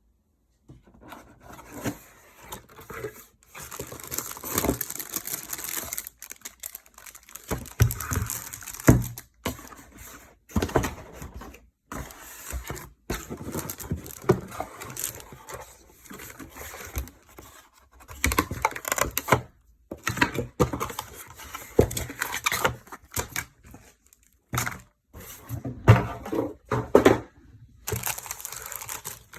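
Keyboard packaging being opened and handled: cardboard and plastic wrap crinkling and tearing, with scattered knocks and short pauses.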